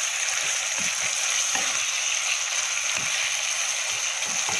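Chicken and onion pieces frying in a thick, reducing sauce in a non-stick pan, with a steady sizzling hiss. A wooden spatula stirs them, giving a few soft scrapes and knocks against the pan.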